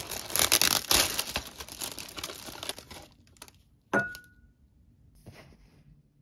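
Clear plastic bakery bag crinkling as a pastry is taken out of it, then a single sharp clink with a brief ring from a ceramic plate about four seconds in, followed by faint rustling.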